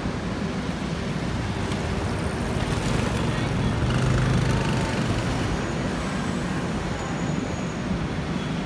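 Road traffic running on a city street: a steady rumble, with one vehicle's engine hum louder as it passes about four seconds in.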